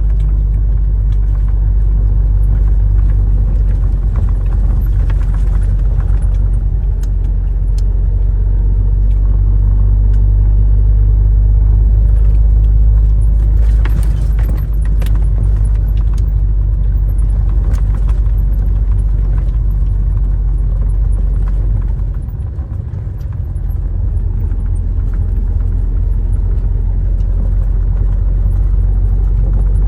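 Steady low drone of a truck on the move, heard from inside the cab: engine and road noise, with light rattles. The drone dips briefly a little past two-thirds of the way through.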